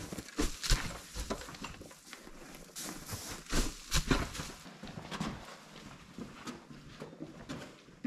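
Hay being thrown down a hay chute from a wooden loft: rustling with irregular soft thuds and knocks.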